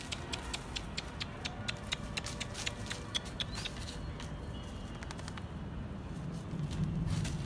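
Stray dogs feeding and shuffling over dry litter: a run of sharp crackling clicks, several a second, for about four seconds, then quieter, with a low rumble swelling near the end.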